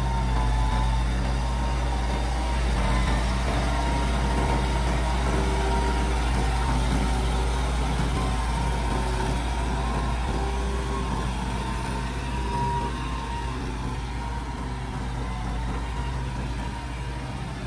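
Tractor engine running steadily at a constant speed while the tractor pulls a disc plough through wet field soil.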